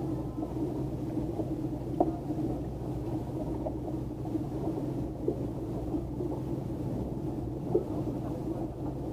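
Flipper 630HT motorboat's engine running at low speed, a steady low rumble, with a few brief knocks.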